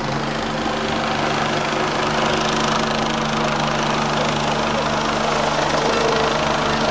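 Helicopter flying overhead, its turbine and rotor running steadily.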